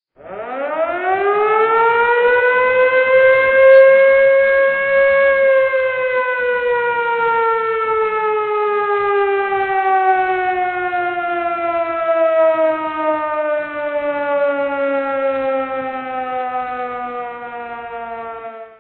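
A siren sounding one long wail. Its pitch rises over about five seconds, falls slowly for the rest, and the sound cuts off abruptly at the end.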